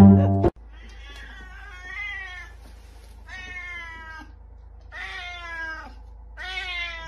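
Siamese-type colourpoint cat meowing about five times in a row, each meow under a second long and sliding down in pitch. A few plucked-string notes of music play at the very start and cut off about half a second in.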